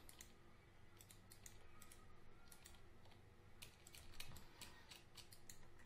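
Faint, scattered clicks of a computer keyboard being tapped, with the G key pressed several times, spread irregularly through the stretch.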